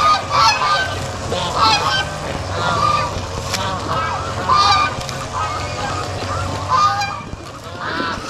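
A flock of domestic geese honking over and over, in short repeated calls from several birds.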